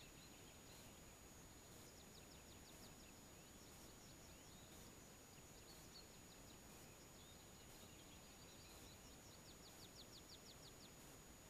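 Faint dawn bird song from distant songbirds, with scattered chirps and twice a rapid trill of quick, evenly spaced notes, one about two seconds in and one near the end, over a low steady hiss.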